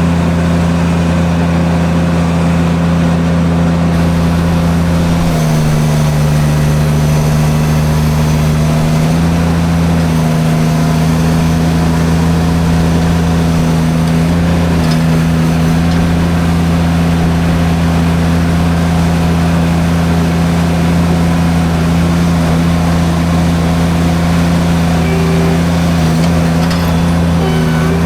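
Derette V1000 mini skid steer's engine running hard with its forestry drum mulcher attachment, a loud steady drone. The engine pitch sags about five seconds in and recovers a few seconds later.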